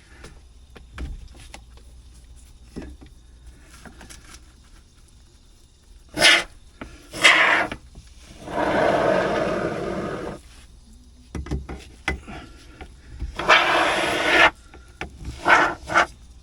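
Can of expanding spray foam sputtering and hissing in bursts, spitting unevenly as it is forced to work after failing to dispense properly. The bursts are two short spurts, one long rough spray lasting a couple of seconds, then more spurts, with a few light knocks before them.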